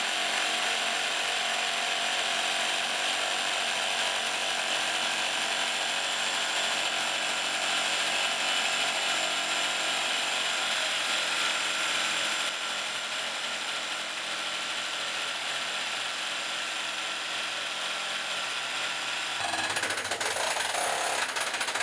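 Two hydraulic rock drills on a twin-boom drill rig hammering into rock to drill 1.8 m holes: a continuous, dense mechanical rattle. It drops a little in level about twelve seconds in and changes character near the end.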